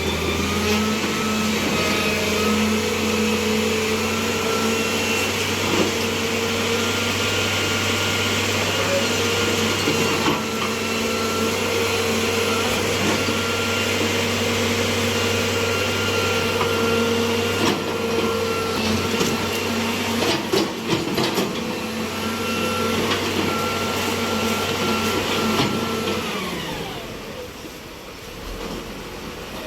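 Road cutting machine running steadily with a high motor whine, a few knocks partway through, then its pitch falls as it winds down near the end.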